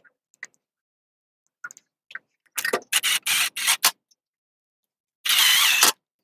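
A screwdriver turning screws on the generator's brush holder: a handful of short grinding bursts about two and a half seconds in, then one steadier run of just under a second near the end. Light clicks of the wires being handled come first.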